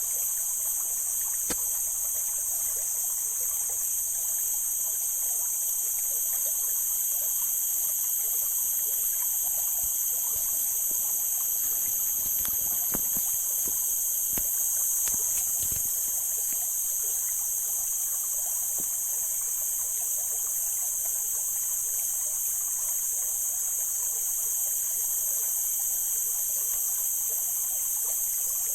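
Mountain stream water flowing and trickling steadily, with a steady high-pitched hiss above it.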